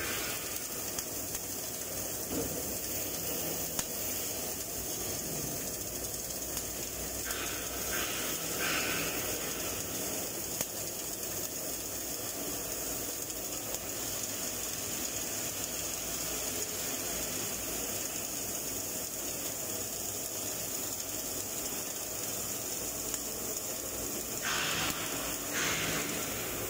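Wire-feed arc welding overhead on a steel butt joint: the arc gives a steady hissing crackle. It grows louder briefly twice, around 7 to 9 seconds in and again near the end.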